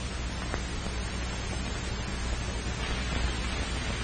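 Steady hiss and low hum of an old optical film soundtrack, with one faint click about half a second in.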